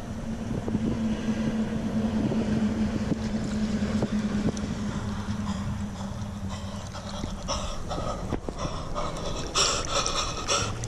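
A steady low engine hum, which fades after about six seconds. Water sloshes and splashes in the later seconds as a large grass carp is handled and lifted in the shallows.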